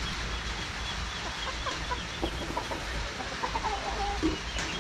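Several free-range native chickens clucking at the feed, short calls coming thicker about a second and a half in, over a steady background hiss.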